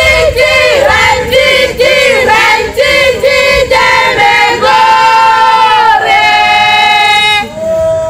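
A group of voices singing a chant in unison: short, rhythmic syllables at first, then long held notes from about halfway, breaking off shortly before the end.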